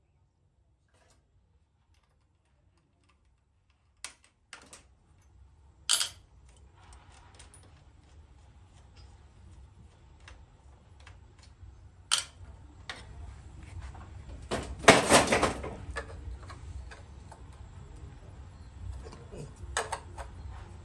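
Scattered clicks, knocks and clinks of metal parts being handled on a miter saw as its blade is swapped for an abrasive cut-off disc, with a short, louder clatter a little past the middle. The first few seconds are near silent.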